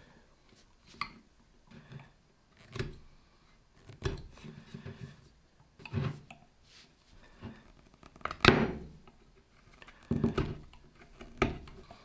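Small carving knife cutting into the end of a wooden chair leg: a series of short, separate scraping cuts spaced a second or two apart, the longest and loudest about eight and a half seconds in.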